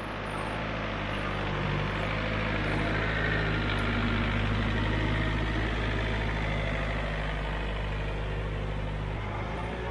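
Tractor engine running at a steady low speed, growing a little louder over the first couple of seconds and then holding even.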